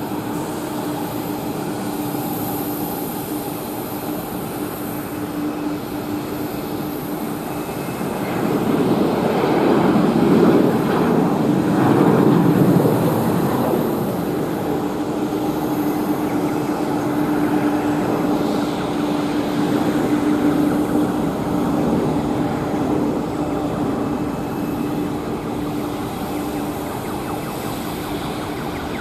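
Jet engines of a McDonnell Douglas MD-11F freighter running on its takeoff roll: a continuous rushing sound with a steady hum that swells louder about eight seconds in and eases again after about fourteen seconds.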